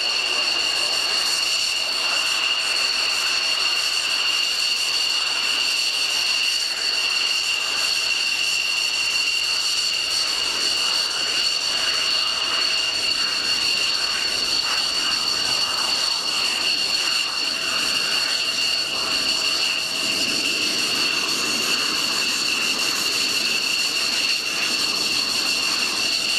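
F-16 fighter's Pratt & Whitney F100 turbofan at taxi idle: a steady high-pitched turbine whine over a constant rushing jet noise.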